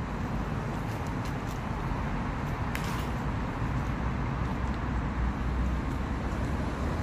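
A steady low rumble of background noise, with a few faint crinkles from a wet plastic bag being unwrapped by gloved hands.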